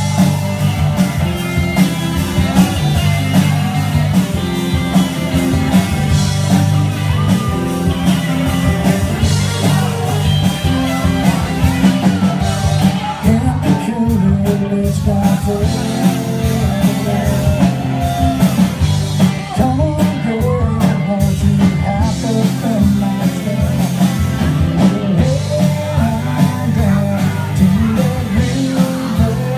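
A country-rock band playing live: acoustic and electric guitars, bass and drums together, a full, steady band sound with a heavy low end.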